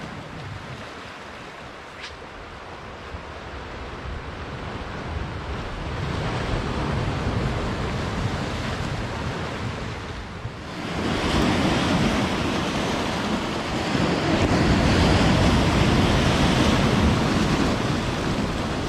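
Sea swell breaking and washing onto a pebble shore. It swells gradually, then rises to a louder surge a little past halfway that keeps going.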